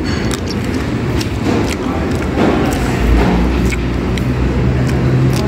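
Low rumble of a motor vehicle engine that comes in strongly about three seconds in and holds steady, under scattered light clicks from spoons and food being handled at a table.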